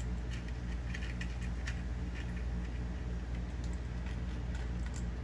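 Scattered light clicks and rattles of a small plastic packet of crimp-on eyelet connectors being handled and opened, over a steady low hum.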